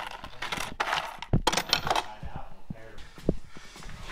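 Metal hand tools clinking and rattling in a metal toolbox as someone rummages through it, with a cluster of louder clanks about a second and a half in.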